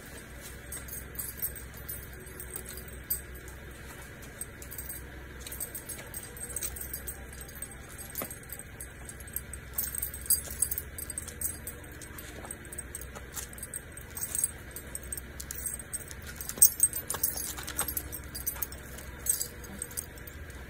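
Metal ID tags on an elderly dog's collar jingling irregularly as the dog walks haltingly on a leash, its coordination failing from degenerative myelopathy.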